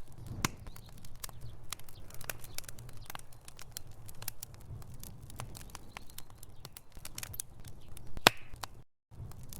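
Wood fire crackling in a fireplace: burning logs giving off irregular sharp pops and snaps over a low, steady rumble of flame. One pop near the end is much louder than the rest. The sound cuts out completely for a moment just before the end.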